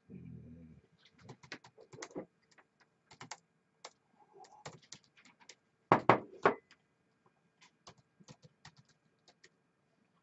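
Typing on a laptop keyboard: irregular key clicks, with a louder cluster of taps and knocks about six seconds in.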